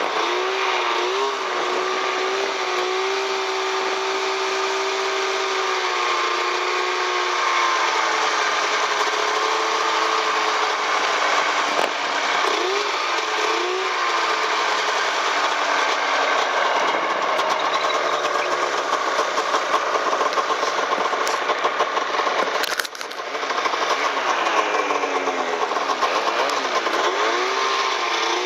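Snowmobile engine running under load as the sled carves through deep powder, its pitch rising and falling with the throttle. There is a brief drop in level late on, then the engine picks up again.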